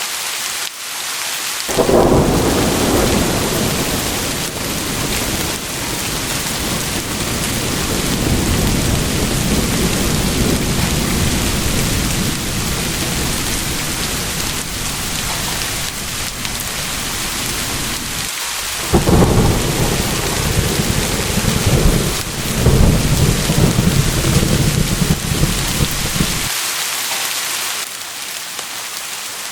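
Steady rain with two long rolls of thunder. The first breaks sharply about two seconds in and rumbles on for about fifteen seconds; the second comes in after a brief lull past the halfway point, with several loud peaks, before dying away near the end, leaving only the rain.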